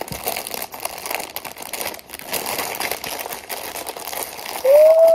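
Wrapping paper crinkling and tearing as a present is unwrapped by hand. Near the end comes a short rising-and-falling vocal "woo", the loudest sound.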